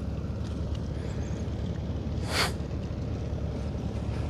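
A small boat engine running steadily, with a brief rushing noise about two seconds in.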